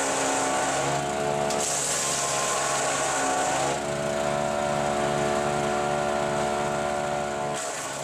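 Haecksler compact wood chipper's engine running steadily while conifer branches are fed through it, with a hiss of shredding that comes and goes. The engine's pitch dips briefly a little before halfway and again near the end as the feed loads it.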